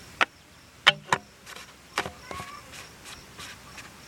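Sharp clicks and knocks, about five in the first two and a half seconds and a few fainter ones after, from a potato cannon being handled and readied to fire.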